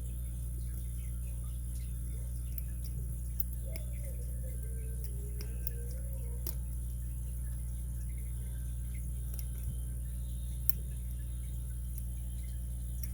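Faint, scattered light clicks of a lock pick working the pin stacks in a Master padlock's 6-pin core under tension, over a steady low electrical hum.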